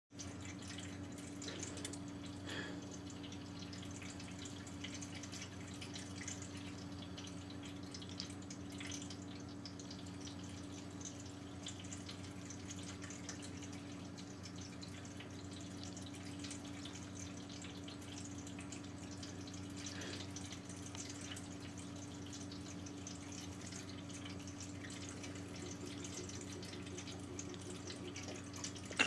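Drinkwell pet fountain running: a steady trickle of water falling into the bowl over the low, even hum of its electric pump.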